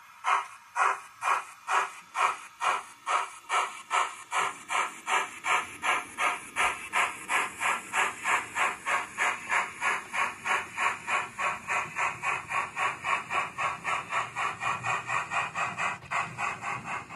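Steam chuffs from a DCC sound-fitted OO gauge model of an ex-NER J72 0-6-0 tank engine pulling away with its train, the beats quickening from about two to about four a second as it gathers speed. A low running rumble from the model joins in after a few seconds.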